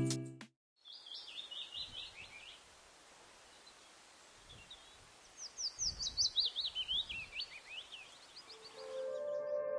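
A songbird singing two runs of quick, repeated down-sweeping notes, the second run longer, over a faint outdoor hiss. Music trails off at the start and soft ambient synth music comes in near the end.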